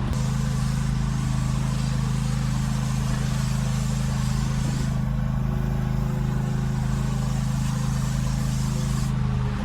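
An engine running steadily at constant speed, with a hiss above it that eases about halfway through and again near the end.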